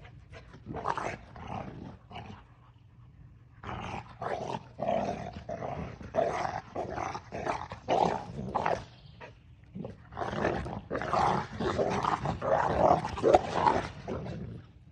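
Central Asian Shepherd dogs play-fighting, growling and snarling in quick rasping bursts, in three spells with short lulls between.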